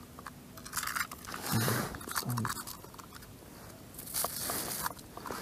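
Irregular crunching and rustling handling noise with many small clicks, as a small ice-fishing rod and reel are handled in gloveless hands beside the hole. A short low murmur comes about one and a half seconds in.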